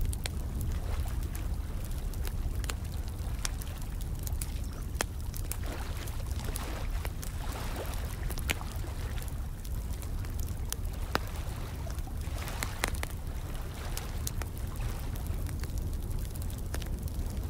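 Fire crackling with irregular sharp pops, layered over steadily running water with a low rumble underneath.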